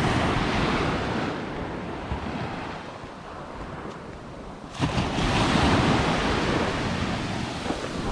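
Small waves washing onto the shore, one surge fading over the first few seconds and another arriving about five seconds in, with wind buffeting the microphone.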